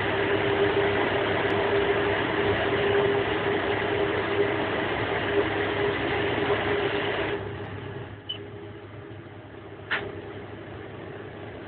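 Steady running noise of an SBB electric train, a hum with one held mid-pitched tone, which drops suddenly to a quieter level about seven seconds in. A short high beep and then a single sharp click follow.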